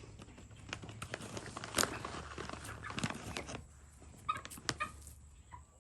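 Young American Bresse chickens pecking and scratching at food, a dense run of quick taps and rustles that thins to scattered single pecks after about three and a half seconds.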